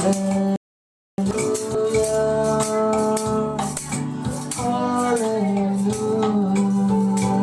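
Music: a sung melody over a steady percussion beat, with a short dropout to silence about half a second in.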